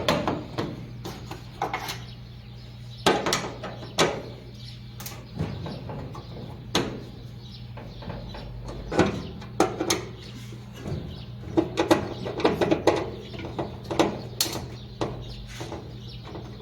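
Irregular clicks, knocks and scrapes of metal dryer parts and tools being handled, over a steady low hum.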